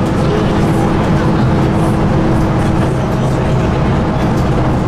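Single-decker bus under way, heard from inside at the front: steady engine hum with a held drone over low rumble.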